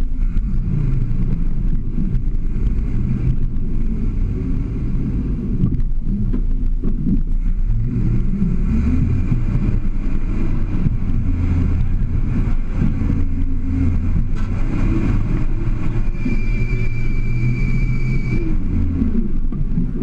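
Toyota Land Cruiser FJ40's engine working at low revs under load while crawling up a rock ledge, the revs rising and falling with the throttle. A thin high steady whine sounds for about two seconds near the end.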